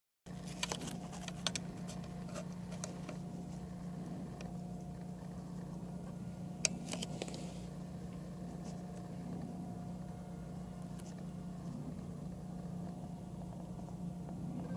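Steady low hum with a fainter, higher steady tone, and scattered light clicks and ticks, the sharpest about six and a half seconds in.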